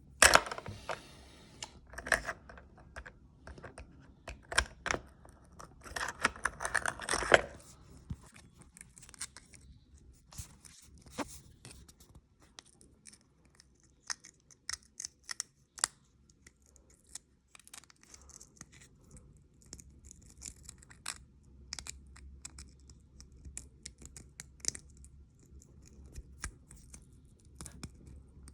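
Hands handling Dremel 3000 accessories and their packaging: many scattered sharp clicks and knocks, with bursts of rustling near the start and again about six to seven seconds in, as parts are fitted into a clip-in grip.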